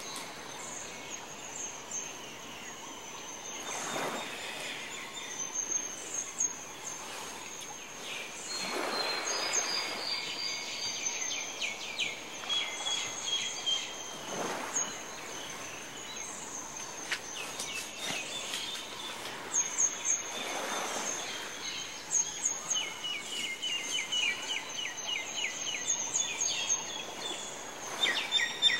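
Small birds chirping and trilling repeatedly, with soft swishing swells of noise at roughly five- to six-second intervals.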